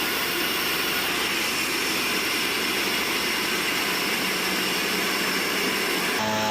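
Sawmill machinery running steadily, a dense mechanical noise with a constant high whine. Just before the end the sound changes abruptly to a lower hum.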